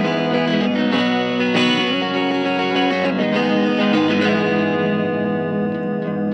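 Background music led by an electric guitar with effects, playing chords and notes without singing.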